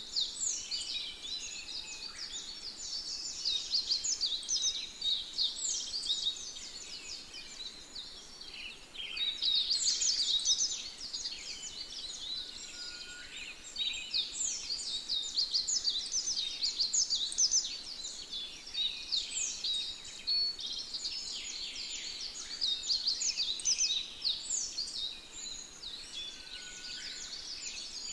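Dense chorus of many small birds chirping: quick high chirps overlap without a break, swelling and easing every few seconds.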